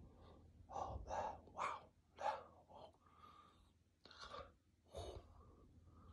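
A man whispering close to the microphone in short breathy bursts, a quick run of them in the first three seconds and a few more near the end.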